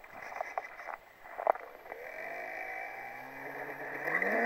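Electric motor and propeller of a radio-controlled FMS Cessna 182 XL model plane in flight, a steady whine that rises in pitch and grows louder near the end. A few sharp knocks come in the first second and a half.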